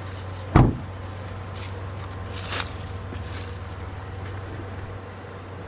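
Handling of a hot covered dish being lifted out of a car: a loud low thump about half a second in and a lighter clink about two seconds later, over a steady low hum.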